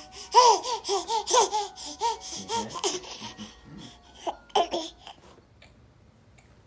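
A ten-month-old baby laughing: a quick run of high, short giggles about three a second, loudest at the start and tapering off, with two more laughs shortly before five seconds in.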